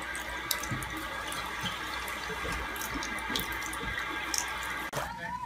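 Bathroom faucet running a steady stream into a ceramic sink, with a few small clicks and taps over the hiss. The sound cuts off abruptly near the end.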